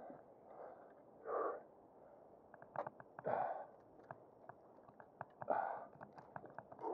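A man's short, effortful breaths: three huffs about two seconds apart, with faint small clicks between them.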